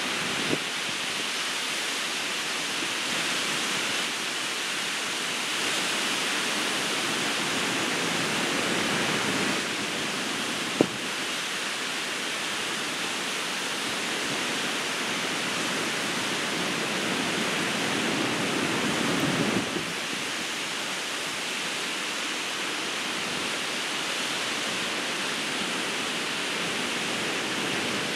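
Ocean surf: a steady rush of breaking waves that swells louder twice as bigger waves come in, with a single short click about eleven seconds in.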